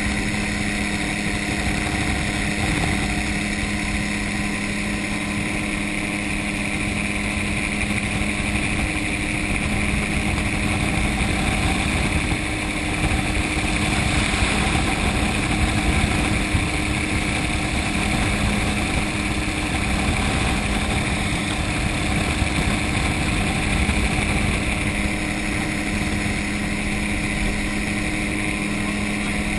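Gyrocopter engine and propeller droning steadily in flight, a continuous hum with a couple of held tones and no changes in speed.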